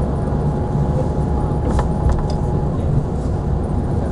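Steady low rumble of a moving road vehicle heard from inside it, engine and road noise together, with a few short clicks or rattles about two seconds in.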